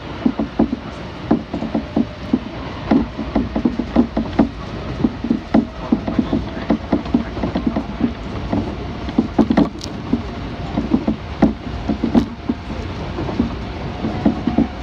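Kintetsu electric train running, heard from inside the carriage: a steady running rumble with frequent, irregular knocks and clicks.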